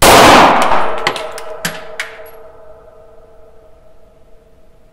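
A single 9×19 mm pistol shot from a VZ-15 prototype handgun, loud and echoing in a small indoor range. A few light metallic clinks follow over the next two seconds as the spent case lands, with a faint ringing lingering.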